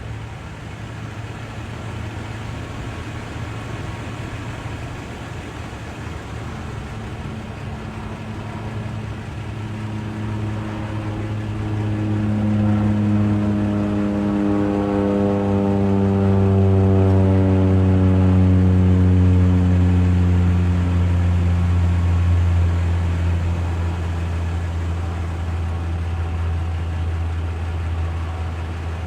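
A motor vehicle engine running nearby over a steady low hum. It grows louder to a peak a little past the middle, its pitch slowly falling, then eases off.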